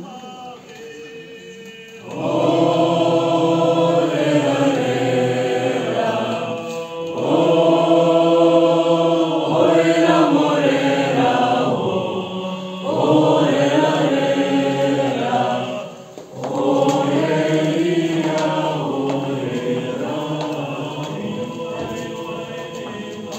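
A mixed group of young men's and women's voices singing a song together as a choir, starting loud about two seconds in. They sing in long held phrases with short breaks between them, and the singing thins out near the end.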